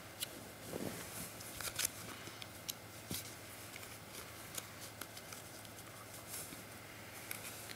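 Playing cards being handled: scattered light clicks and snaps of card stock, the loudest cluster about two seconds in, over a faint steady hum.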